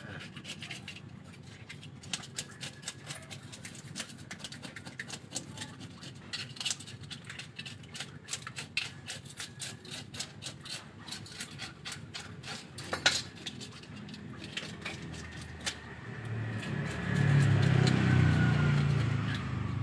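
A knife scraping and scratching over a large gourami, a long run of short irregular scrapes and clicks as the fish is scaled and cleaned. Near the end a louder low engine hum swells for a few seconds with a falling pitch, then fades, like a vehicle passing.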